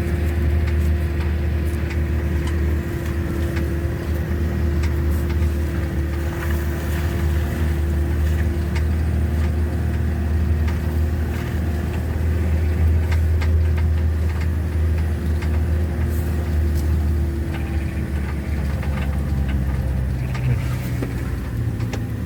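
Ambulance driving at a steady speed, heard from inside the cab: a continuous low engine and road drone with a steady higher hum that fades out near the end.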